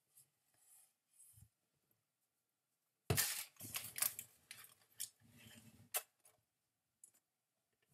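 Handling noise: a sharp click about three seconds in, then a few seconds of rustling and smaller clicks, and another sharp click near six seconds.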